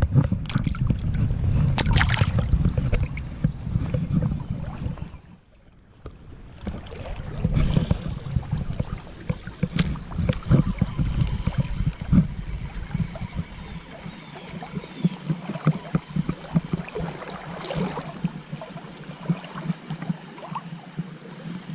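River water sloshing and splashing around a wading angler's legs, with a low rumble of wind on the microphone. There is a short quiet dip about five seconds in, and the deepest rumble eases off about two-thirds of the way through.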